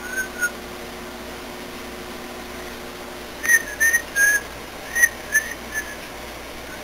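A person whistling through pursed lips in short, separate notes: two brief notes at the start, then a run of about half a dozen short notes from around the middle until near the end.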